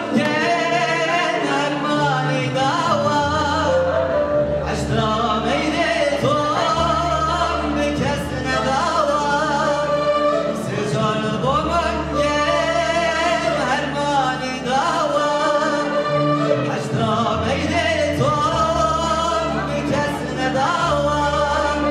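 A man's voice singing a wavering, heavily ornamented melody through a microphone, over electronic keyboard accompaniment with held low notes.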